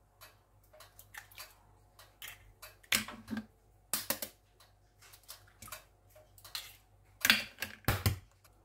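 Eggs being cracked into a glass bowl one after another: sharp taps and cracks of eggshell against glass in short clusters, about three seconds in, at four seconds, and again near the end.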